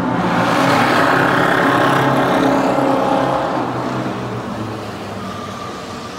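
A loud car engine driving past on a wet street, the sound fading gradually over the last few seconds.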